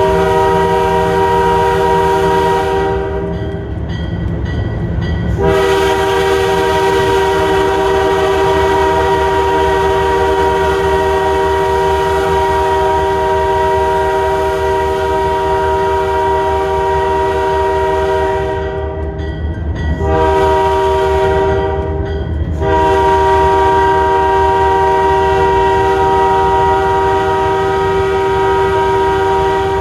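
Diesel locomotive air horn sounding the grade-crossing signal: a long blast, a very long blast, a short one, then a long one held on. Under it runs the low rumble of the locomotive and the train rolling on the rails.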